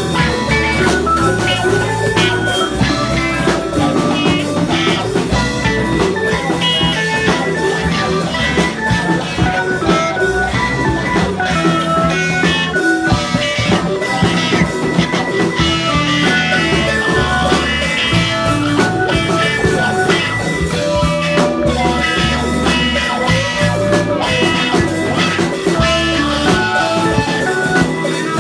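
A rock band playing during a rehearsal, with a bass line that moves in held notes and steady drumming throughout.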